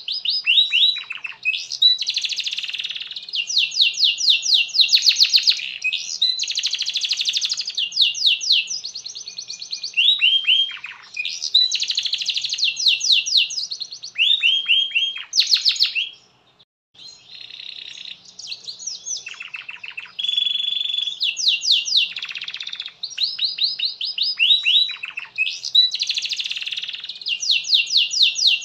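Domestic canary singing a long, continuous song: phrase after phrase of fast trills and rolls of rapidly repeated notes, with one brief pause about sixteen seconds in.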